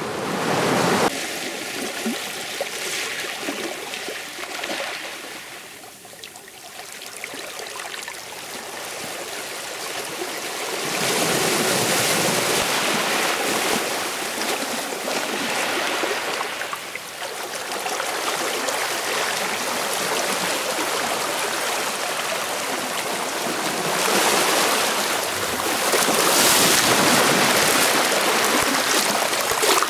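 Sea surf: waves rush in and wash back in slow swells, loudest about eleven seconds in and again near the end.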